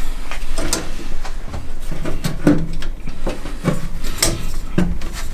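Metal intake pipe being pushed and twisted into a reducer coupling on a Nissan SR20DET engine: irregular knocks and clicks of the pipe against the fittings, with rubbing between them.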